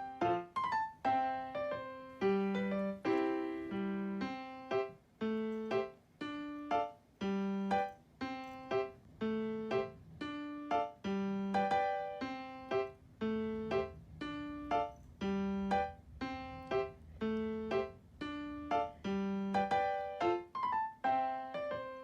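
Background music: a light piano or electric-piano tune, plucky notes struck about twice a second, each fading quickly.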